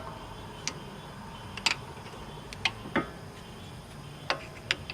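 Sharp metallic clicks and taps, about eight, at irregular intervals, as a flathead screwdriver pries a brake caliper back into place over new brake pads.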